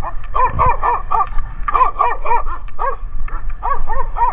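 Small dog barking in quick runs of short, sharp barks, about a dozen over a few seconds, over a low steady rumble. There is one low thump about half a second in.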